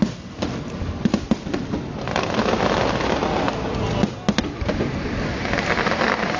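Fireworks going off: sharp bangs of shells bursting, then from about two seconds in a dense, continuous crackle of many small bursts.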